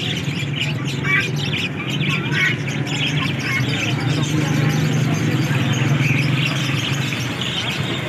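Many caged birds chirping and squawking together, budgerigars and parakeets among them, in short, overlapping calls over a steady low hum.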